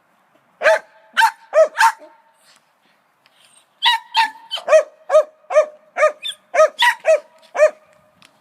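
Dogs barking: four quick barks, a pause of about two seconds, then a fast run of about a dozen barks.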